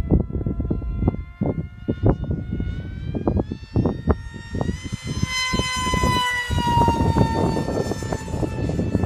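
Electric motor and 5x5 pusher propeller of an RC plane whining in flight, climbing in pitch and getting louder to about halfway, then sliding down in pitch as it passes. Wind buffets the microphone throughout.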